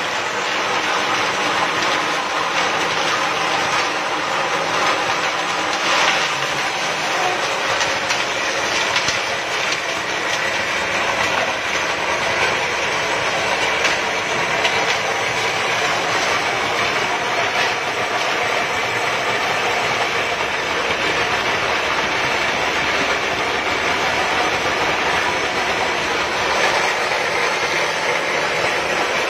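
Organic-waste pulverising machine, driven by a 1.5 hp electric motor, running steadily with a dense, continuous clatter and no let-up.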